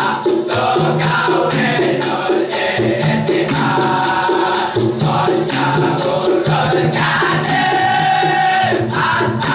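A group of boys chanting an Arabic song in unison, in long held melodic phrases over a steady beat.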